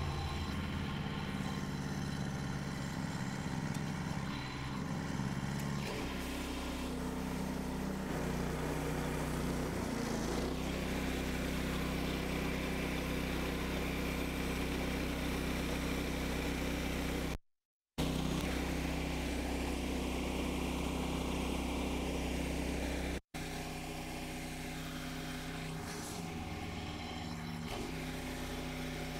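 Gasoline engine of a Woodland Mills HM130 portable bandsaw sawmill running steadily, its pitch shifting a few times. The sound cuts out completely twice, briefly.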